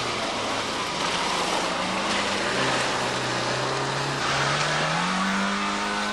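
Off-road 4x4 engine running under load with a steady note, then rising in pitch about five seconds in as it revs up.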